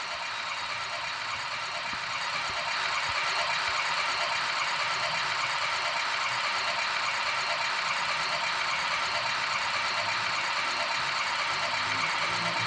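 Steady, even background hiss with no distinct events, rising slightly about two seconds in.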